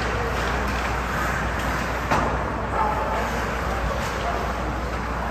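Ice hockey game play in an arena: a steady wash of skating and crowd noise with a few sharp knocks of stick and puck, the loudest about two seconds in.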